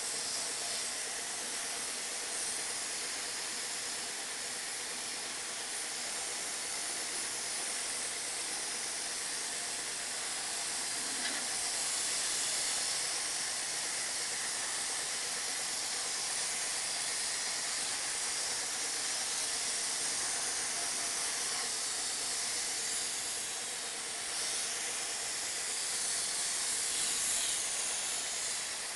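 Steady hiss of rust-preventive oil being sprayed onto a machine tool, swelling slightly now and then.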